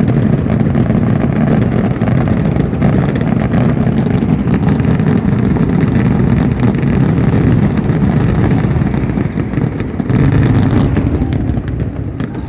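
Dense fireworks barrage: a continuous low rumble of overlapping bursts laced with crackling, with a brief surge about ten seconds in.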